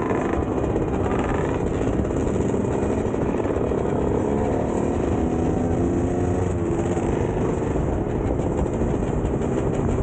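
Two-stroke dirt bike engines running under way, their pitch rising and falling as the throttles open and close, over a dense low rumble.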